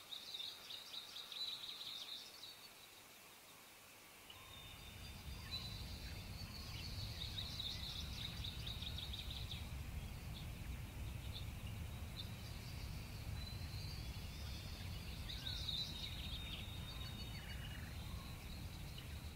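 Outdoor ambience: small birds chirping and trilling in repeated short bursts, joined about four seconds in by a steady low rumble.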